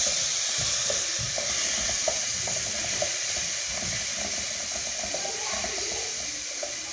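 Chopped onion sizzling as it sautés in olive oil in a pot, stirred with a wooden spoon, with a couple of light knocks against the pot about two and three seconds in.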